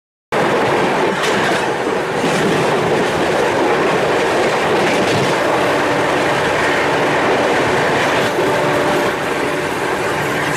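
Gatiman Express passenger train running along the line: a loud, steady rush of wheel and rail noise with occasional knocks. A faint steady whine joins in about halfway through.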